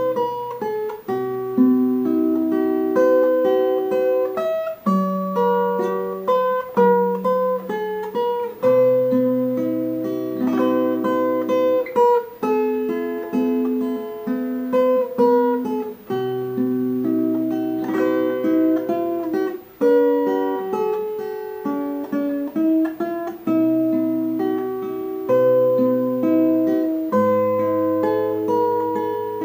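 Instrumental background music on acoustic guitar: plucked notes and strummed chords that start sharply and fade, changing about every second.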